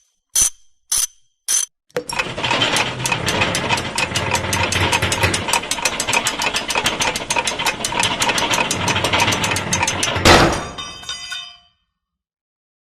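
Mechanical clicking: a few single ticks, then a fast ratcheting clatter of about seven clicks a second for about eight seconds, ending in a sharp hit that rings out briefly.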